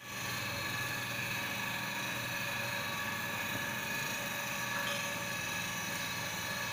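Steady hum of running machinery, with several steady whining tones over a constant low drone.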